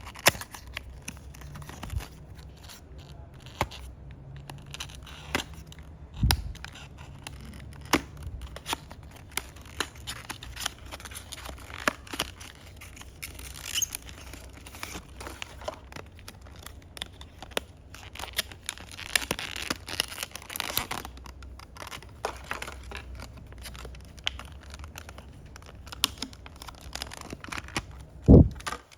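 A model bus's packaging being opened and handled: tearing and crinkling, with many scattered clicks and knocks, a longer rustle about two-thirds of the way through, and the loudest knock near the end.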